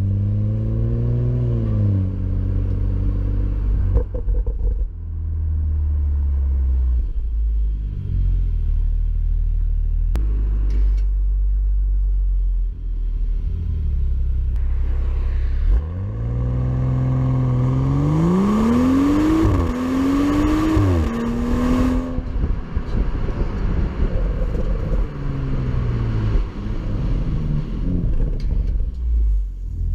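BMW M235i's turbocharged 3.0-litre straight-six heard through its exhaust, mostly a low rumble at light throttle. The revs rise and fall briefly near the start, and past halfway there is a hard acceleration with the revs climbing through two quick upshifts before settling.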